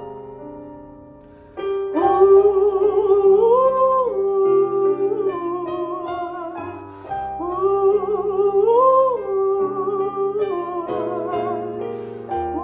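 Solo piano notes fade out, and about two seconds in a female voice comes in singing a wordless melody with vibrato over piano chords, in a jazz ballad style.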